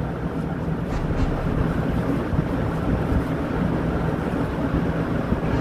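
A steady low hum and rumble of machinery, even throughout, with a constant droning tone.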